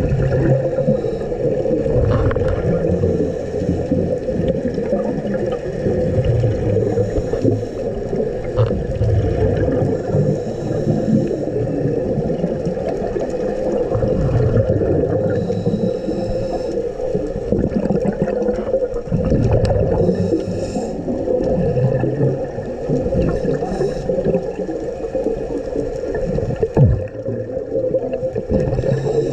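Underwater sound picked up by a diver's camera: a steady low rumble and hum, with now and then a short hiss of bubbles from a scuba regulator exhalation.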